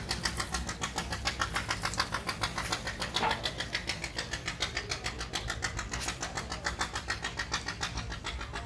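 A truck's diesel engine running, with a fast, even clatter of about six ticks a second over a steady low rumble.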